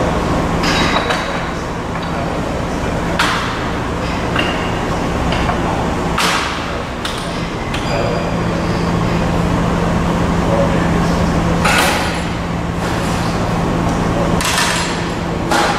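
Sheet metal clanking sharply against the steel bed and tooling of a CIDAN sheet-metal folding machine as the workpiece is handled, about five knocks spread out. Under them runs a steady machine hum that grows louder about eight seconds in.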